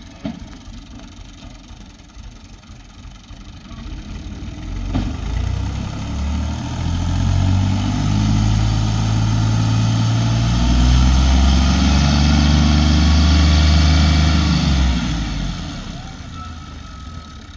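A motor engine running, building up from about four seconds in, its pitch shifting up and down in steps, loudest past the middle, then dying away near the end. A sharp click comes at the very start and another about five seconds in.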